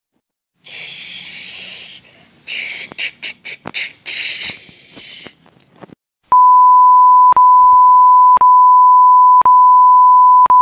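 A few seconds of rustling and scraping noise, then from about six seconds in a loud, steady, high beep tone added in the edit, broken by a short click about once a second.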